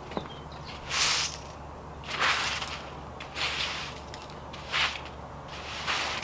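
Angle broom's bristles sweeping across concrete: five swishes, about one every second and a quarter.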